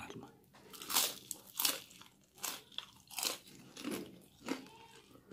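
Crisp fried noodle crackers (kerupuk mie) being bitten and chewed close to the microphone: a string of sharp crunches, roughly one every second.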